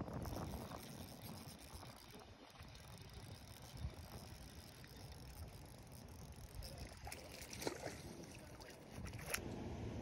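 Low rumbling wind noise on the microphone, with a few faint ticks and clicks and one sharper click near the end.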